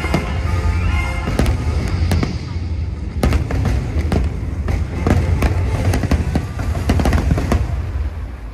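Fireworks bursting in quick succession, many sharp bangs over loud show music with a heavy bass. The bangs and music ease off near the end.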